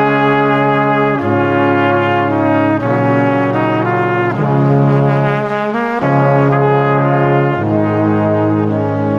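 Background music: slow, sustained chords in a brass-like timbre, the harmony changing every second or so.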